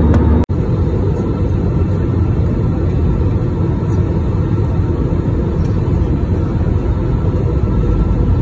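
Steady cabin noise of a jet airliner in cruise: the low, even roar of engines and airflow heard through the fuselage. The sound drops out briefly about half a second in, where the recording cuts.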